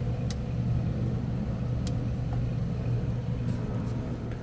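Steady low machine hum, with a couple of faint clicks.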